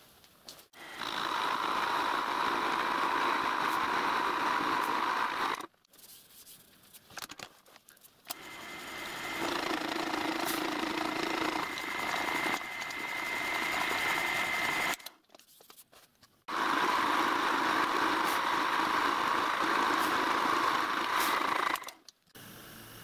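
Vertical milling machine running an end mill through solid cast iron, with a steady whine over the cutting noise. It comes in three spells with short breaks between them: a series of angular cuts that build up a radius on a steam-locomotive cylinder block.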